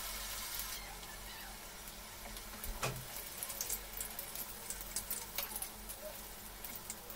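Hot oil sizzling as a potato cheese cutlet fries in an aluminium pan, hissing steadily at first, then crackling with many small pops. A metal spoon knocks against the cutlet or pan about three seconds in while turning it.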